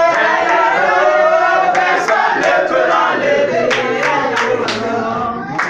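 A group of voices singing and chanting together, with hand claps.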